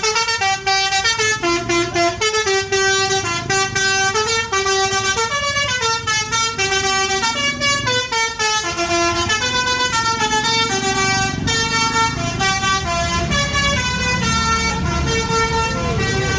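Bus 'basuri' telolet horn, an Indonesian multi-tone musical air horn, playing a long tune of short notes that step up and down several times a second, over a low rumble of the bus.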